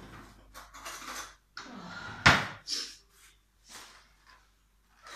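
A kitchen cabinet being opened and rummaged in: a string of short knocks and rattles, the loudest a sharp bang a little over two seconds in.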